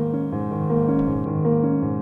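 Background music: a keyboard playing held notes that change every half second or so.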